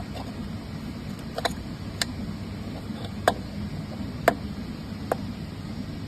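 About five short, sharp clicks at irregular intervals, the first a quick double, over a steady low hum.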